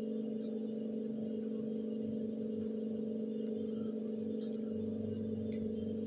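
Background music: a steady, sustained droning tone with no beat and no change.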